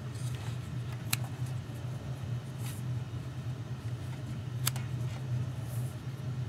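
A few sharp clicks and short soft rustles over a steady low hum: a folding knife being handled and cutting through cord.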